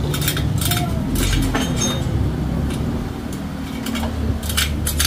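Metal clinks and taps, a scatter of short strikes in quick succession, over a steady low rumble of vehicles.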